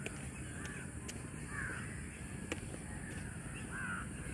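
Birds calling: several short calls a second or two apart, over a steady low background noise.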